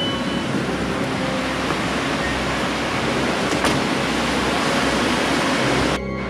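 Strong gusty wind rushing over the microphone, a loud steady noise that cuts off suddenly near the end, where background music comes back in.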